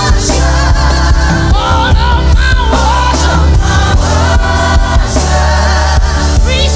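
Gospel worship music: a choir singing over a band, with heavy bass and a steady drum beat.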